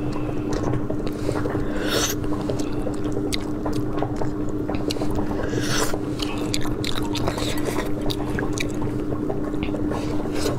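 Wet squelching and sticky tearing as saucy braised pork is pulled apart with plastic-gloved hands, with small clicks and drips, and chewing near the end. A steady low hum sits underneath.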